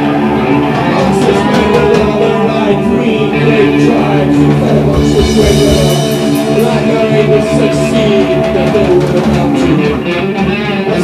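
Live rock band playing loudly, with electric guitar and drum kit.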